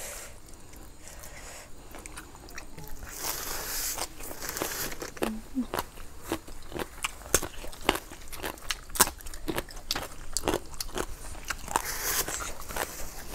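Close-miked crunchy chewing of raw vegetables and green papaya salad, with many sharp crunches. Two long hissing breaths through pursed lips, about three seconds in and near the end, the blowing that cools a mouth burning from chili.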